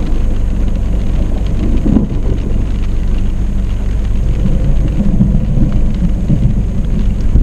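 Thunderstorm heard from inside a car: rain on the glass and a steady deep rumble, with no sharp thunderclap.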